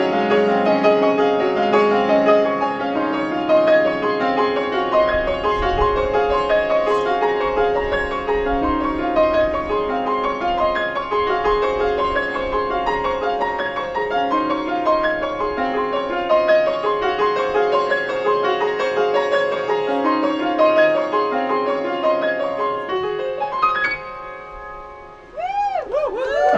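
Background piano music with a steady flow of notes. Near the end it drops away briefly, and a run of quick swooping tones comes in.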